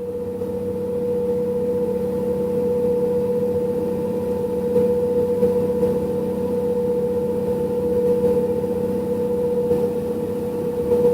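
Route bus humming: one steady held tone with a fainter one above it over a lower rumble, not changing in pitch.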